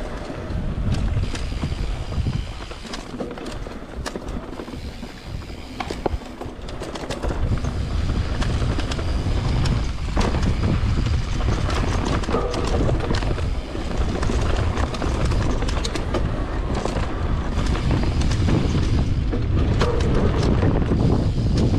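Mountain bike being ridden along a dirt trail: tyres rolling over the ground, with scattered knocks and rattles from the bike over bumps and a heavy rumble of wind on the microphone. It is quieter for a few seconds near the start, then steady.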